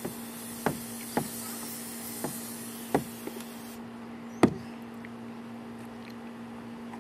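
Five short, sharp knocks spread over about four seconds, the last the loudest, over a steady low hum and a high hiss that cuts off suddenly about four seconds in.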